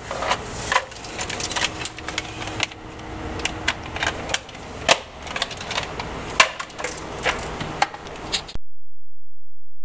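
Irregular clicks and light knocks over a steady hiss. The sound cuts off abruptly about eight and a half seconds in.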